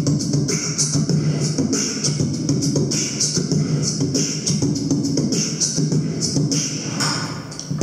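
Human beatboxing through a microphone and amplifier: a steady rhythm of deep bass kicks and short hissing hi-hat sounds, easing off briefly near the end.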